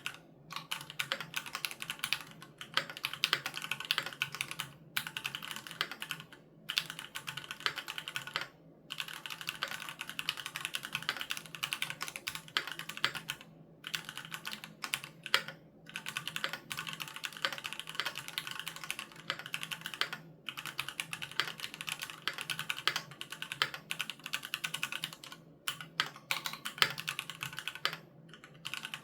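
Fast typing on a Keychron Q3 mechanical keyboard with Gateron G Pro Red linear switches: dense runs of key clicks broken by short pauses every few seconds.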